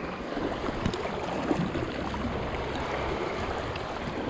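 Sea water washing and lapping steadily over shoreline rocks, with a few faint knocks.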